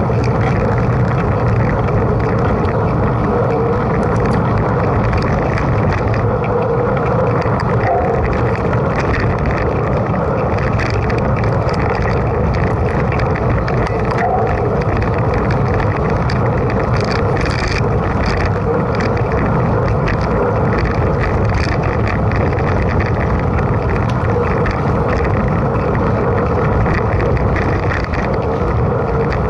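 Mountain bike in motion: steady rolling and wind noise with small scattered rattles and crackles.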